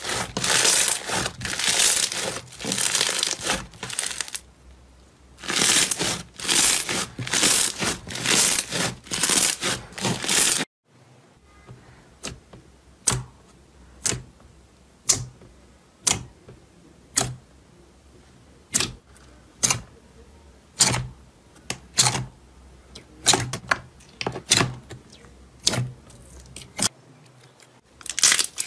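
White foam-bead slime (floam) squeezed and kneaded by hand, crunching and crackling in dense bursts. About ten seconds in it cuts abruptly to a hand pressing into a tub of clear pink slime, which makes short sharp clicks about once a second.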